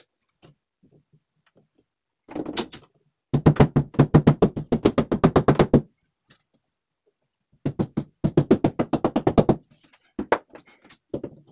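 Power drill running in two bursts of about two and a half and two seconds, with a rapid, even rattle of about eight pulses a second, drilling into the drywall at the marked hole positions; a few knocks and handling thumps around them.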